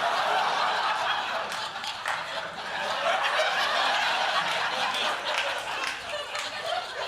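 Studio audience laughing loudly, the laughter easing off near the end.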